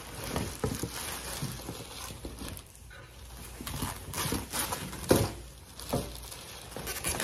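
Plastic wrapping and a thin foam packing sheet rustling and crinkling as they are pulled out of a cardboard box, in irregular handfuls, with the loudest crackle about five seconds in.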